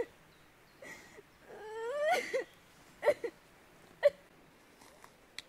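A woman sobbing and whimpering in distress: a long rising wail about two seconds in, then short catching sobs.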